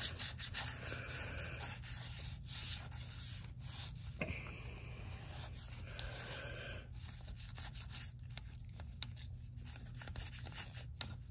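Toothbrush bristles scrubbing the foamed-up rim of a lawn mower wheel, a quick run of short back-and-forth scrubbing strokes.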